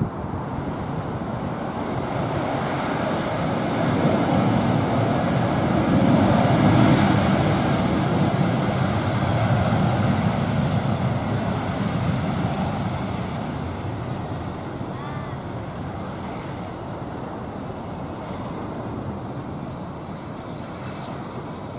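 Jet engines of a Tigerair Airbus A320 rumbling as the airliner rolls along the runway. The noise swells to its loudest about six to ten seconds in, then slowly fades.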